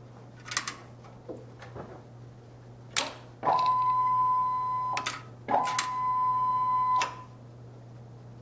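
A plastic Connect Four chip clicks into the board. A solenoid clicks, and then a stepper motor whines at one steady pitch for about a second and a half as it drives the chip carriage along its lead screw. A click follows as the chip is released, then a second equal whine as the carriage runs back, ending in a click at the limit switch. A steady low electrical hum lies underneath.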